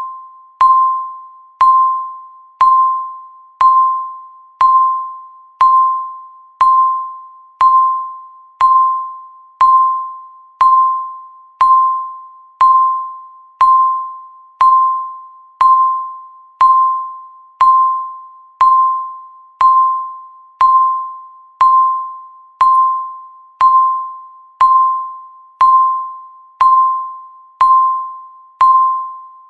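Countdown timer's tick sound: a sharp ping at one steady pitch, once every second, each fading away before the next.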